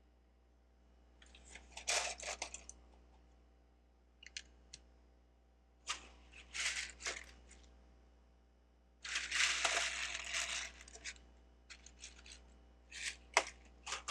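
Plastic Lego bricks clicking and clattering as pieces are handled and picked through, in several short bursts, with a longer rustling clatter about nine seconds in.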